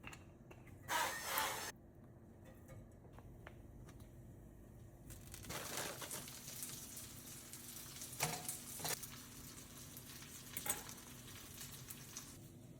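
Kitchen cooking sounds: a short loud rustle about a second in, then food sizzling in a pan from about five seconds in, with a few knocks against the pan.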